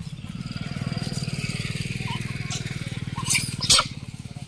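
A motorcycle engine running steadily at low revs, with a falling whine about a second in and two sharp clicks near the end.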